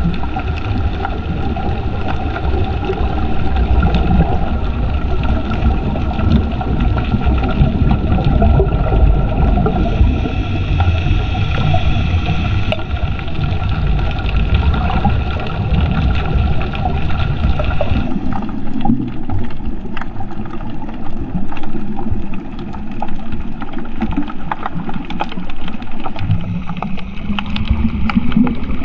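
Underwater rumble with a steady engine-like hum, typical of a boat's motor heard through the water. About two-thirds of the way through the hum's higher tones drop away, leaving a rougher rumble with scattered clicks, and near the end a low tone rises in pitch.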